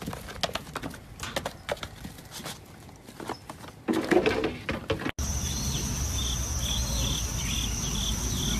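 Goats' hooves clicking and knocking on wooden stumps as the goats jump between them, with a louder scuffle about four seconds in. About five seconds in the sound changes abruptly to outdoor ambience: a steady high-pitched hum with short chirps repeated about twice a second.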